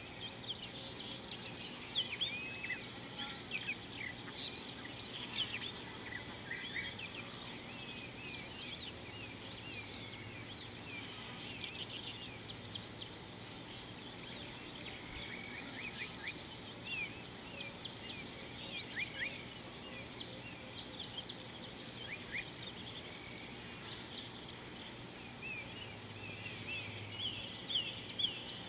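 Many small birds chirping in quick, overlapping high calls, over a faint steady low hum.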